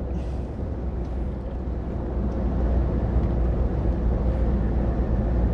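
Heavy lorry's diesel engine running at road speed, heard from inside the cab as a steady low rumble with tyre and road noise; it grows a little louder about two seconds in.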